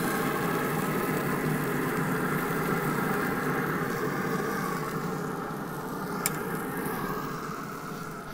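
Steady whir of a Pit Boss pellet grill's fan running, easing off a little in the last few seconds, with one sharp click about six seconds in.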